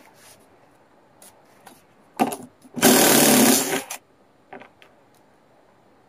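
Power drill driving a 2.5-inch screw into softwood: a short burst just after two seconds in, then about a second of steady running before it stops.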